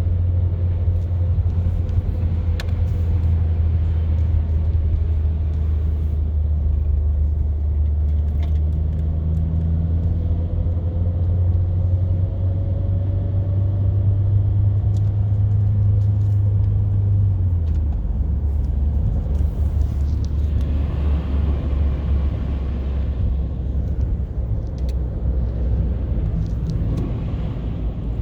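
A car being driven, heard from inside: a steady low engine and road drone that drops in pitch about two-thirds of the way through, with a stretch of hissing tyre noise a little later.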